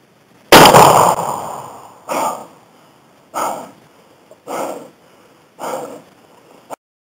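A single loud shotgun shot with a long fading tail, aimed at a wild turkey. Four shorter bursts of sound follow about a second apart.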